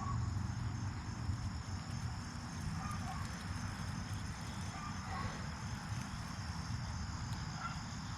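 Outdoor background: a steady high insect chirring over a low rumble, with a few faint short chirps.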